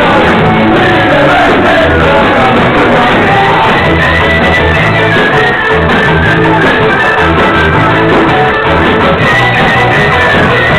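Live band playing loud rock music with shouted vocals, a steady bass pulse underneath, and the top end cut off.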